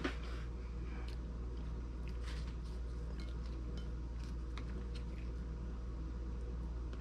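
Steady low room hum with a few faint clicks and crunches of tortilla chips being picked up, dipped in sauce and chewed.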